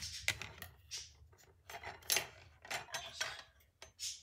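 Kitchen handling noise: a run of sharp clicks and short scrapes from a metal spoon and scissors being picked up and used.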